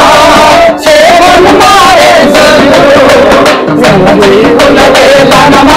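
A group of men singing a song together, one wavering melody line, with a hand drum beating underneath.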